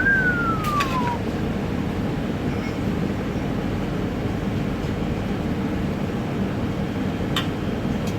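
Steady rumbling background noise of a commercial kitchen's running equipment. Right at the start there is one short high squeak that falls in pitch over about a second, and a few faint clicks follow.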